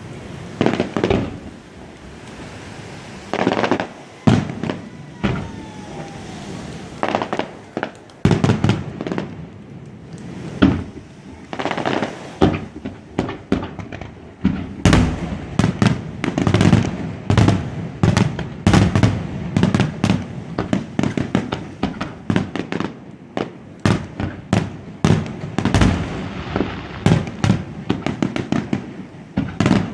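Fireworks display: aerial shells going off in a string of sharp bangs with echoing tails, spaced out at first and coming thick and fast from about halfway through.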